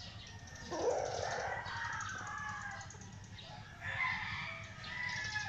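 White Hatch gamecock crowing: one long crow beginning about a second in, followed by shorter calls near the end.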